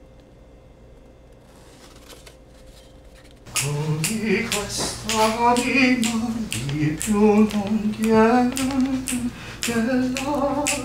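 Quiet room tone with a few faint taps, then about three and a half seconds in a voice starts singing or vocalizing without clear words, with held and sliding notes.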